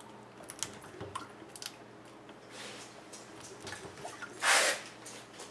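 Two plastic soda bottles joined neck to neck handled while water swirls down from one into the other: small clicks and crinkles of the plastic, with one short, loud rush of noise about four and a half seconds in.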